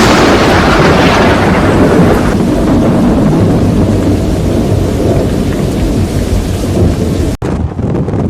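Thunder cracking loudly and rolling into a long deep rumble, with heavy rain. Near the end the sound drops out for an instant and picks up with a different texture.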